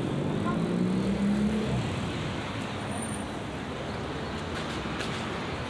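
Road traffic on a busy city street: a steady wash of passing cars and other vehicles, with one engine note rising slightly and a little louder in the first couple of seconds.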